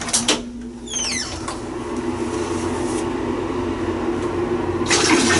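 A couple of clicks and a short sliding scrape with falling squeaks, then a steady hum. A little before the end, water starts running hard from a bathroom shower or tap.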